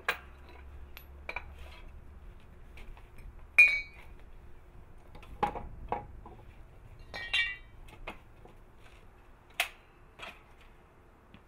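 Scattered metallic clinks and knocks from metal pieces being handled and set down against each other. The loudest clank, about a third of the way in, rings briefly, and a second ringing clink comes a few seconds later.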